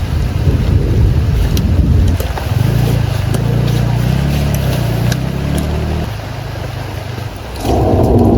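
Rainstorm outdoors: a loud low rumble with scattered sharp raindrop ticks over it. The rumble shifts about two and a half seconds in, eases off about six seconds in, and the sound changes abruptly near the end.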